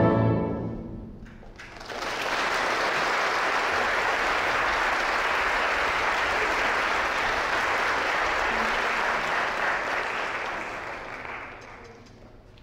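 An orchestra's final chord dies away, and about a second later the audience breaks into steady applause, which fades out near the end.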